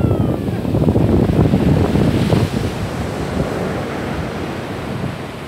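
Atlantic surf breaking on a sandy beach, a steady rush of waves, with wind buffeting the microphone. The loud wind buffeting eases about two and a half seconds in, leaving the surf.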